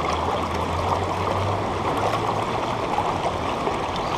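River current rushing and gurgling steadily past, close to the water's surface.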